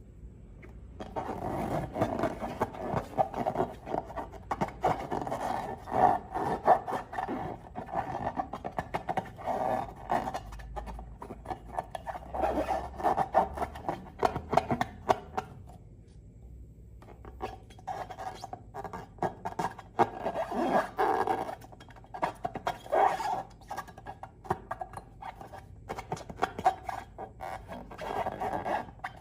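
Slime and long balloons being squeezed and rubbed by hand: a dense, irregular run of small clicks and rubbing, with a short pause just past the middle.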